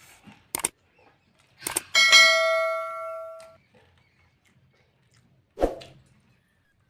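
Metal dishware being knocked and handled: a couple of short clinks, then one clang that rings on for about a second and a half as it fades, and another knock near the end.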